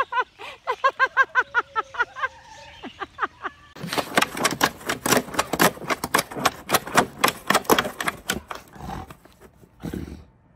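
A fast run of short, pitched voice-like notes, then rapid crunching and scraping of snow against a plastic snow shovel as a dog digs and bites into it.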